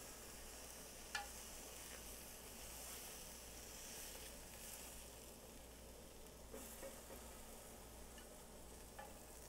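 Chopsticks scraping sautéed shiitake mushrooms out of a nonstick frying pan, heard quietly over a faint sizzling hiss. There is one sharper click about a second in and a few fainter light clicks later.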